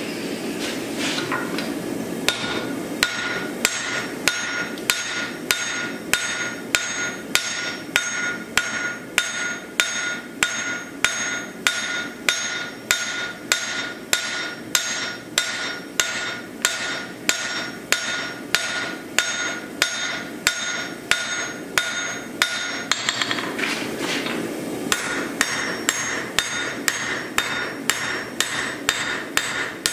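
Hand hammer striking a red-hot axe head on a steel anvil, about two steady blows a second, each with a bright ring from the anvil. The blows stop briefly near the three-quarter mark, then resume.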